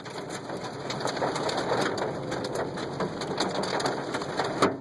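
Hail pelting a car's roof and windshield, heard from inside the cabin: a dense, continuous clatter of many hard strikes, with one louder crack near the end.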